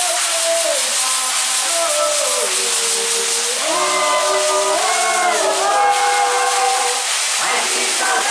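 Several voices singing a congado chant in long held notes that glide from pitch to pitch, over a steady high rattling hiss of shaken rattles.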